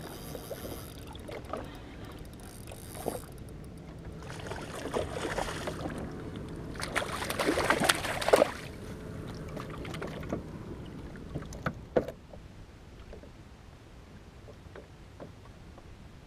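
Water splashing as a hooked snapper thrashes at the surface beside the jet ski and is grabbed by hand, in two spells, the louder one about seven to eight seconds in. A single sharp knock about twelve seconds in.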